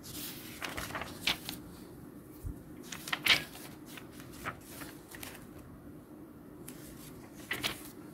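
Paper catalogue pages being handled and turned, in several short rustles.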